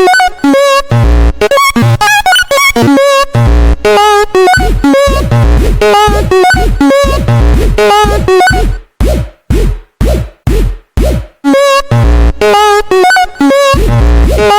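Loud, distorted electronic meme remix of Japanese railroad-crossing sounds: warbling pitched tones over deep bass hits, chopped into short stabs with abrupt cuts and a stuttering run in the middle.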